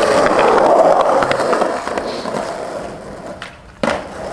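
Skateboard wheels rolling over concrete, the rolling noise fading away over a few seconds, then a single sharp clack of a board near the end.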